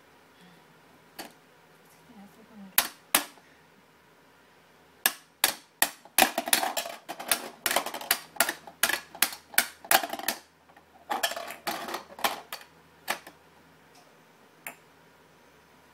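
A plastic toy hammer banging on a plastic pound-a-ball toy: a few scattered hits, then two quick runs of sharp clacks, several a second, with a short break between them, stopping for the last couple of seconds.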